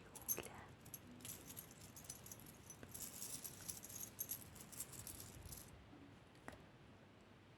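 Jewelry jingling and clinking, quiet and high-pitched, handled close to the microphone for ASMR; it stops about six seconds in.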